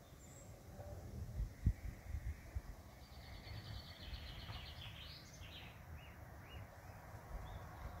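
A songbird singing one short phrase: a fast trill, then a rising note and a few separate notes. It comes over a low rumbling noise on the microphone.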